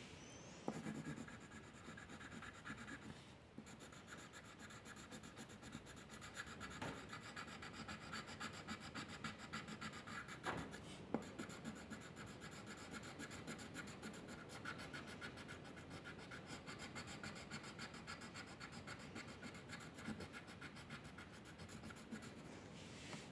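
Faint, continuous scratching of a pen or pencil drawing strokes on paper, with a few light clicks.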